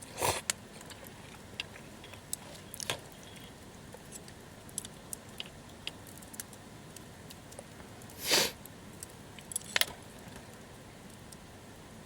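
Light handling noises: scattered small clicks and clinks with a few short rustling bursts, the loudest about eight seconds in.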